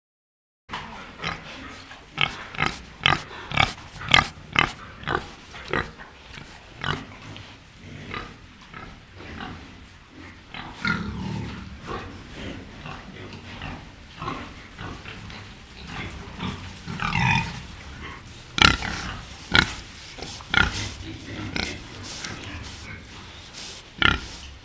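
Pig grunting in a long run of short, abrupt calls, with a few longer, higher calls partway through.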